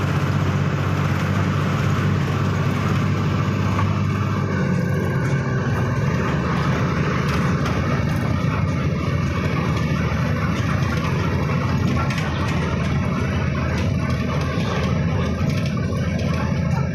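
Steady engine hum and road noise of a vehicle driving at speed, heard from inside its cabin. A low engine drone is plainest for the first few seconds, then blends into an even rumble.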